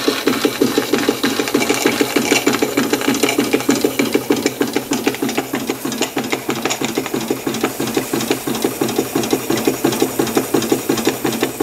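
Märklin 4147/11 live-steam ship's engine running at a slow speed, chugging with a steady, even beat of steam exhaust and mechanism clatter while it drives a small dynamo.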